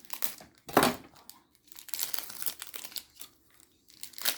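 Pokémon booster pack foil wrappers crinkling and tearing as packs are ripped open and handled, in irregular rustles with a sharp loud rip about a second in and another near the end.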